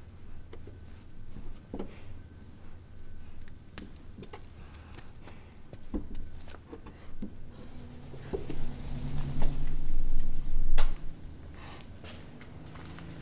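Slow footsteps on wooden stairs: scattered soft knocks a second or so apart. About eight seconds in a low droning tone swells up for a few seconds, the loudest sound, then fades.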